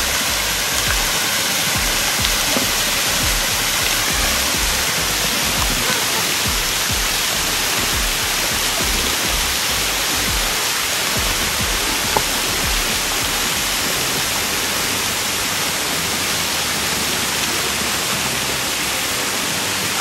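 Steady rushing of a waterfall falling into a plunge pool, with background music underneath.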